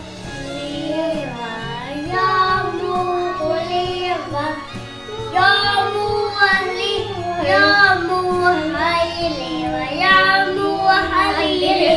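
Music: a melody sung in a child's voice in phrases of held, gliding notes, over steady low accompanying notes.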